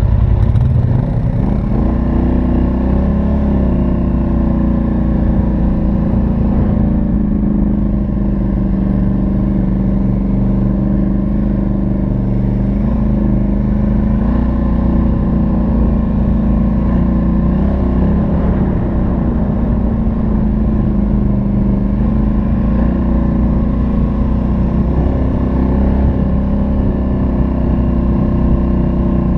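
Polaris Sportsman XP 1000 ATV's twin-cylinder engine through its stock exhaust, running steadily at trail speed with small rises and falls in throttle.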